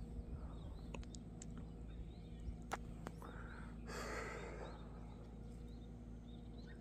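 Quiet outdoor ambience: a low steady hum with faint high chirps, a few small clicks, and a breathy sigh about four seconds in.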